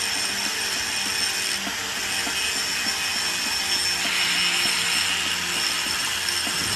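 Angle grinder running, its disc grinding against the glazed ceramic of a mug: a steady high whine over a grinding hiss.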